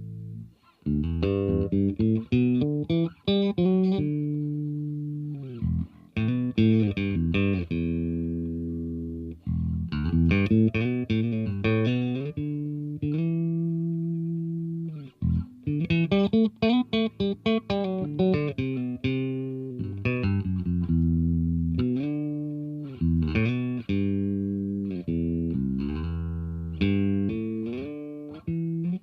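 Fernandes FRB-60 Revolver electric bass played solo: short phrases of plucked notes, each ending on a held note that rings and fades, with brief stops between phrases.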